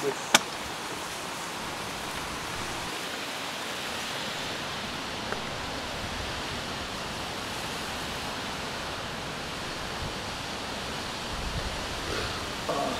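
Steady, even hiss of outdoor background noise, with a single sharp click about half a second in.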